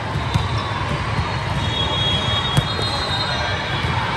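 Busy indoor gym during a volleyball match: a steady wash of crowd and player noise with faint high squeaks, and two sharp knocks, one about half a second in and one a little past halfway.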